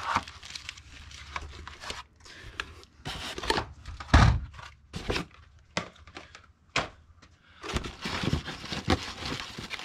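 Chainsaw parts and packing being handled in a cardboard box: irregular crinkling and scraping with several knocks, and one heavier thump about four seconds in.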